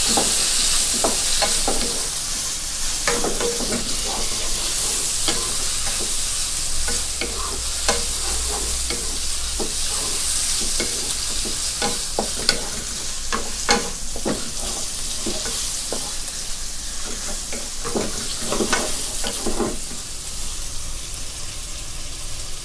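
Pork neck pieces and sliced shallots sizzling in oil in a stone-coated nonstick wok, with a wooden spatula stirring and scraping against the pan. A steady high sizzle runs under irregular knocks and scrapes of the spatula.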